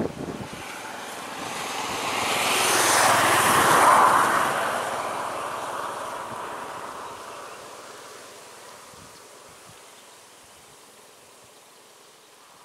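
A short click, then the rushing noise of a passing vehicle that swells to its loudest about four seconds in and slowly fades away.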